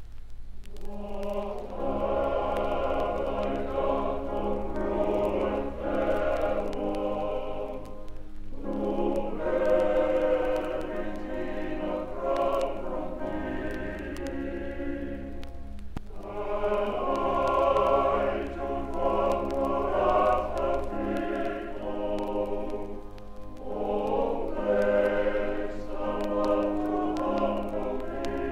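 Male voice choir singing a Victorian sacred or romantic ballad in four phrases of a few seconds each, with short breaks between them. Under the voices a low accompaniment holds long notes, with the light surface clicks of a vinyl LP throughout.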